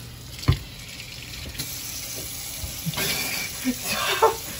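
Kitchen faucet running into a steel sink while someone drinks and gulps water straight from the stream. There is a sharp knock about half a second in, and a few short voice sounds near the end.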